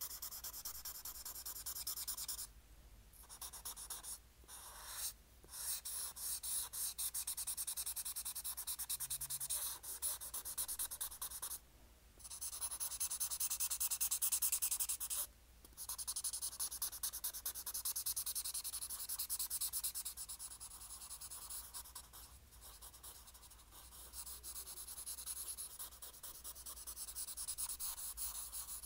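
Pen drawing on paper, with a close, scratchy run of quick strokes that breaks off for a moment several times.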